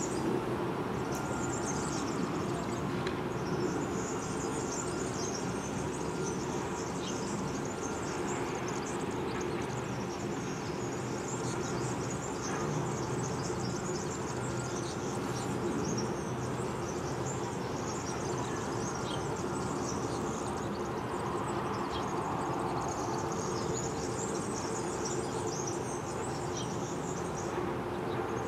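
Diesel-electric shunting locomotives idling steadily in a rail yard, a low even engine hum, with small birds twittering high above it.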